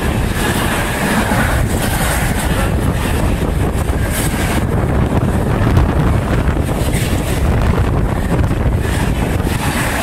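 Container freight train passing at speed close by: the flat wagons rumble steadily over the rails in a rush of wind that buffets the microphone.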